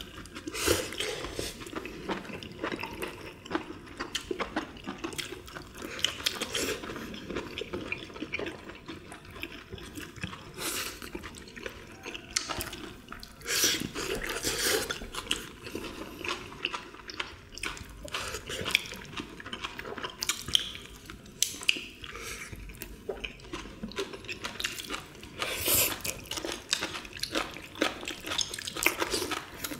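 Close-miked eating sounds of several people: chewing and slurping mouthfuls, with chopsticks clicking against ceramic bowls and plates in irregular short clicks.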